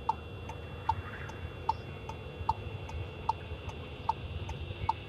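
Car turn-signal indicator ticking steadily, signalling a right turn. The clicks come about every 0.4 s, alternating louder and softer, over the low rumble of the engine and road inside the cabin.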